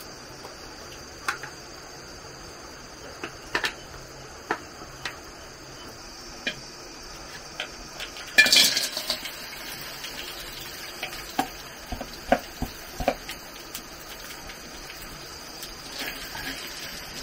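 Small crabs tipped from a bowl into an aluminium wok with a loud clatter about halfway through, followed by a run of sharp clicks of chopsticks against the wok as they are stirred. Scattered light clicks come before.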